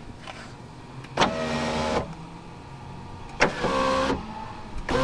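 Electric window motor and regulator in a Land Rover Discovery 2 front passenger door, run in short bursts of under a second each: one about a second in, another past three seconds and a third starting at the very end. The regulator has a broken plastic wheel.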